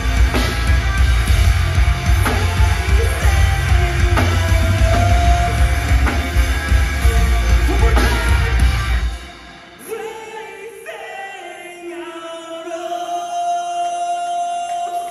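Heavy live band playing loud: distorted guitars, bass, pounding drums and shouted vocals. The band cuts off abruptly about nine seconds in, leaving quieter sustained ringing notes.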